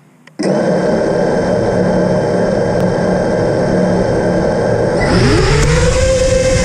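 FPV racing drone's electric motors and propellers spin up suddenly about half a second in to a steady whine of several tones, heard from the drone's own camera. About five seconds in the throttle opens and the pitch rises as the drone lifts off.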